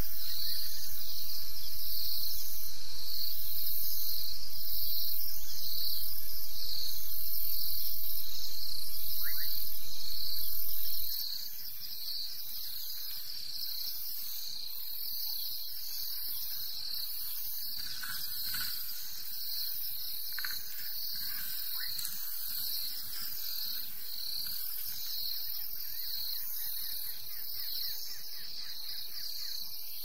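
Insect chorus: a high, steady pulsing buzz repeating about twice a second. A low rumble underneath stops suddenly about a third of the way through.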